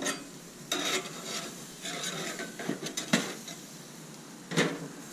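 Metal spatula scraping and clanking against a gas grill's steel grate as pieces of meat are flipped, several separate clatters, with a faint steady sizzle from the meat between them.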